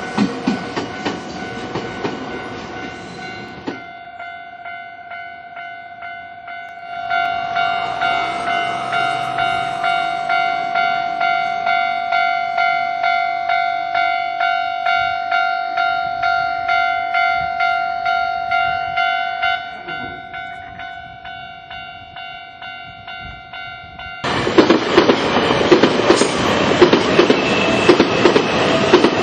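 A train passing over a Japanese level crossing, its wheels clattering over the rail joints. Then the crossing's warning bell rings about twice a second, louder from about seven seconds in and fading after about twenty. At about twenty-four seconds another train runs through with the same clatter.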